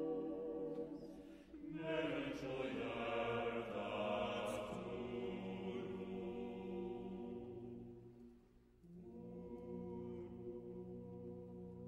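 Choir singing slow, sustained chords. A new chord swells in about two seconds in, and after a brief fade another enters near nine seconds.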